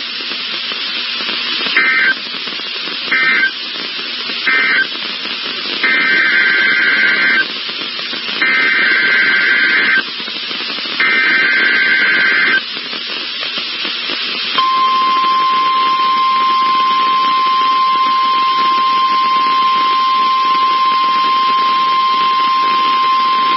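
NOAA Weather Radio Emergency Alert System tones over radio hiss: three short screechy SAME data bursts, the end-of-message code closing the previous test, then three longer SAME header bursts opening a tornado warning. About fifteen seconds in, the steady 1050-hertz weather radio warning alarm tone starts and holds to the end.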